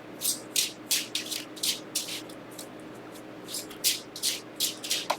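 A deck of tarot cards being shuffled by hand: a run of quick swishing card strokes, about three a second, with a pause of about a second around the middle.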